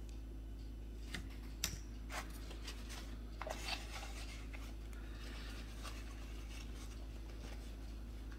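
Hand handling noise: a handful of light clicks and taps between about one and four seconds in, then a soft brief rustle, over a steady low hum.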